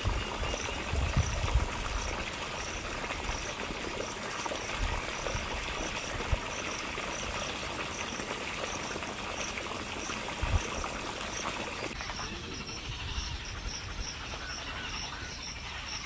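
Outdoor ambience: a short high chirp repeating about one and a half times a second over a steady hiss, with a few low thumps on the microphone, mostly in the first two seconds. The hiss drops away about twelve seconds in, leaving the chirping.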